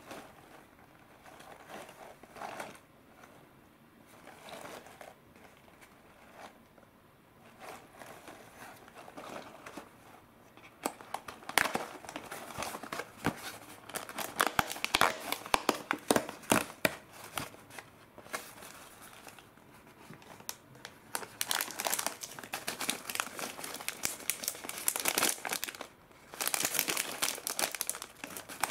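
Cardboard Morinaga Ottotto snack box handled, its perforated end torn open, then the foil snack pouches from inside crinkling as they are pulled out and handled. It starts with soft handling and turns to loud, dense crackling about a third of the way in.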